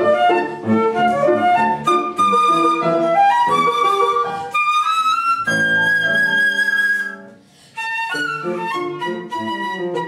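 Concert flute with piano accompaniment playing a lively classical piece: quick-moving flute notes over piano, a long held high flute note about halfway through, then a short break before flute and piano carry on.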